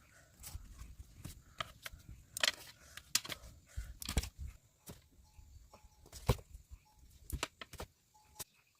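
Irregular clicks, knocks and rustling, as of hands working with material, with a few short faint tones in the middle.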